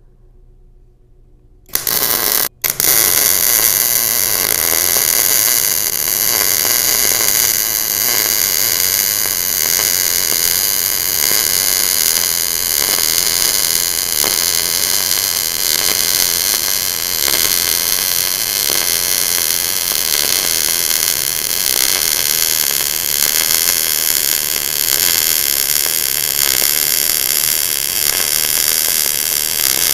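MIG (gas metal arc) welding arc striking about two seconds in, cutting out for a moment, then running steadily with an even, loud noise as a horizontal bead is laid along a beveled steel butt joint.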